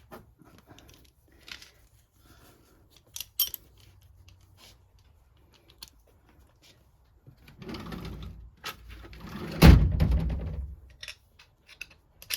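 Scattered light clinks and knocks of tools and parts being handled, then a louder stretch of rough scraping and knocking from about 7.5 s, ending in a heavy thump near 10 seconds.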